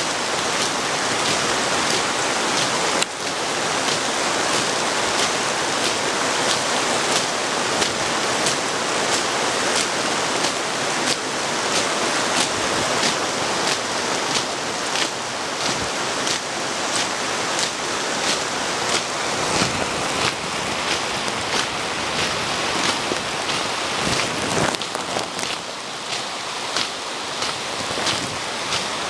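Heavy rain pouring steadily on a wet paved parade ground, with a regular beat of sharp taps about two a second running through it.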